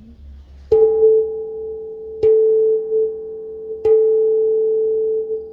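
A bell struck three times, about a second and a half apart, each strike ringing on in a clear steady tone that carries past the next.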